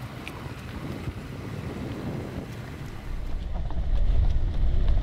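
Wind buffeting the microphone outdoors: a steady rushing hiss that swells into a strong low rumble about three seconds in.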